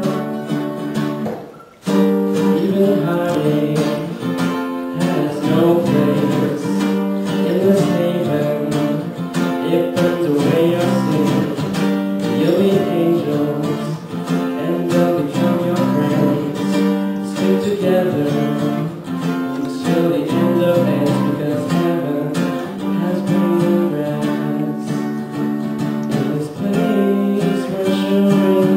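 A song played live on acoustic guitar with singing. The sound dips and breaks off about two seconds in, then guitar and voice pick up again.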